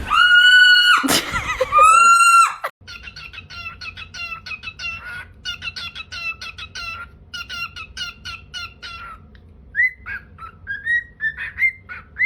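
Parrot calls: two long, loud whistled calls in the first three seconds, then quick runs of short chirps, and near the end a string of short rising whistles.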